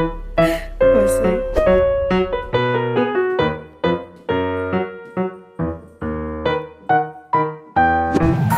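Background piano music: a light tune of single struck notes, each ringing and fading, about two or three notes a second.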